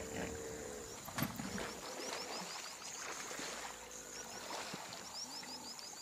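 Faint outdoor wildlife ambience: a small animal's short, high, rising chirps repeated in quick runs, with a single soft click about a second in.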